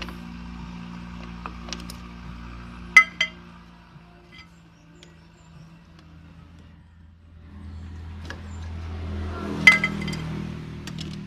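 Metal tools or parts clinking during a brake repair, with two sharp ringing clinks about three seconds in and another near the end, over a steady low hum.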